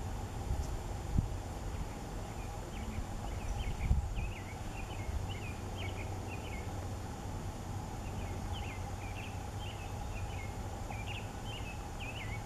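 A songbird singing: two runs of quick, high chirping notes, the first from about two and a half seconds in, the second from about eight seconds in, over a steady low rumble.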